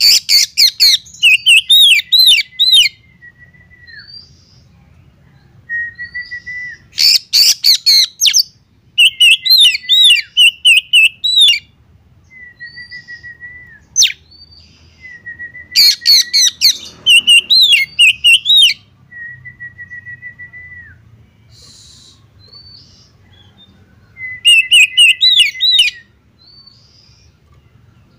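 Oriental magpie-robin singing: loud bursts of rapid whistled and harsh notes every few seconds, separated by quieter short trills.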